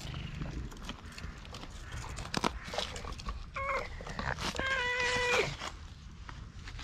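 A white-and-tabby stray cat meowing twice: a short meow about halfway through, then a longer, level meow that drops in pitch as it ends. A few faint clicks and rustles are heard around the calls.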